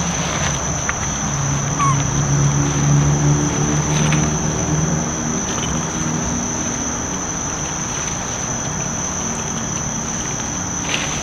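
Insects droning in the forest, one steady high-pitched note held without a break. A low hum runs underneath for the first half and fades out about halfway through.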